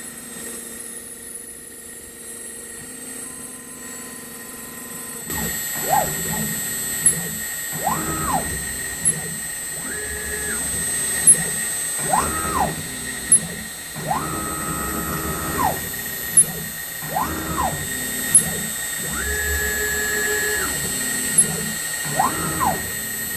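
CNC router spindle milling a clear plastic plate with an end mill, with a steady high whine. About five seconds in the cut gets louder, and from then on a whine rises in pitch, holds and falls again every couple of seconds as the machine's axes speed up and slow down on each pass, with small sharp ticks between.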